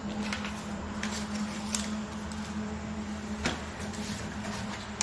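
A steady low hum, with a few light clicks and taps scattered through it.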